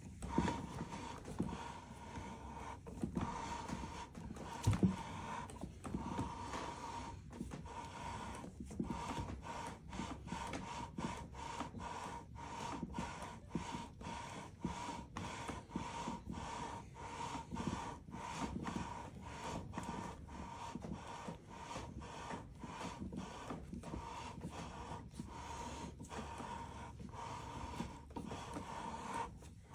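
Steel lapping bar with lapping compound being worked back and forth inside the scope rings: repeated gritty rubbing strokes, with metal scraping on metal.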